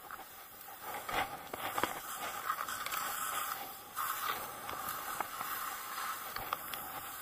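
Snow hissing and scraping under a rider descending a slope of fresh powder, with scattered crunches. It grows louder about a second in.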